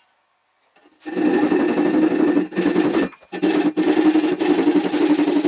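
Handsaw cutting through wood, sped up fourfold so the strokes blur into a rapid, buzzing rasp. It starts about a second in after a short silence and breaks off briefly a few times.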